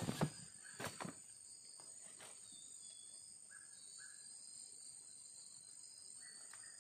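Steady high-pitched chorus of insects, cricket-like, with a few soft knocks in the first two seconds and three brief faint tones later on.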